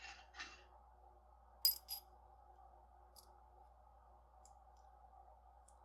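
Two sharp metallic clicks with a brief ring, about a third of a second apart and about a second and a half in, then a few faint ticks: small zirconium parts of a magnetic haptic fidget coin being handled and fitted together. A soft rustle comes right at the start.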